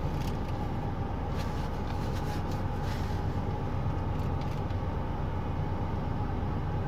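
Chewing and crunching on fried chicken, bone included, heard as a few faint crackly clicks about a second or two in, over a steady low hum like an idling vehicle engine.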